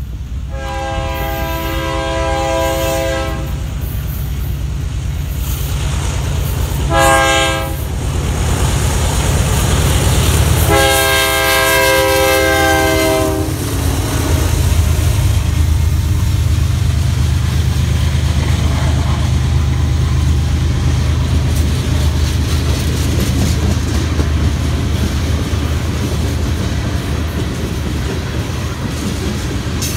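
BNSF diesel freight locomotive's multi-tone air horn sounding three blasts, long, short, then long, over the low rumble of the approaching train. After the horn the freight train runs past steadily, its wheels clacking on the rail joints.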